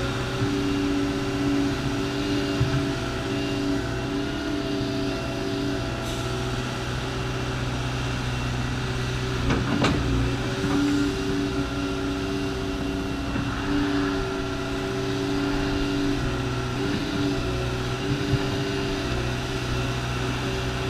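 Diesel engine of a Volvo tracked excavator running at a steady pitch under working load as it moves its bucket, its tone shifting slightly now and then. There is a single sharp knock about ten seconds in.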